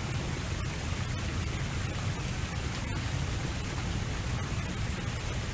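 Steady outdoor background noise with a low rumble, even and unchanging.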